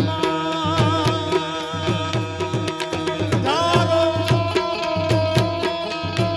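Live tabla drumming in a fast, steady rhythm, the bass drum's low strokes sliding down in pitch, under a melody of long held notes, some wavering, with a new held note gliding in about halfway through.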